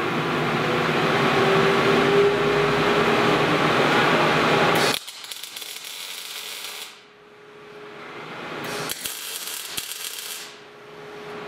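MIG welding arc crackling in short runs as a steel prop tube is tack welded to the hull bulkhead. For the first five seconds a loud steady rushing noise with a low hum sits over it, then cuts off abruptly.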